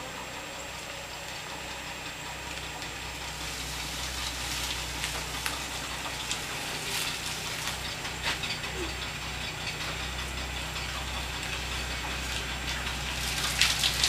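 1962 Ford Fairlane 500's engine running at a low idle as the car creeps forward, growing louder as it comes closer. Light clicks and crackles from the tyres rolling over brick pavers and dry leaves.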